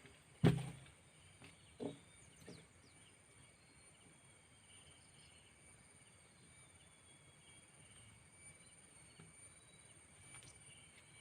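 Quiet outdoor ambience with a steady faint insect drone, broken by a sharp knock about half a second in and a few lighter knocks over the next two seconds.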